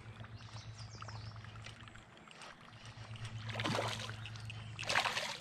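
A hooked fish splashing at the water's surface while being fought on rod and line, with two splashes, about three and a half seconds in and again near the end. A steady low hum runs underneath.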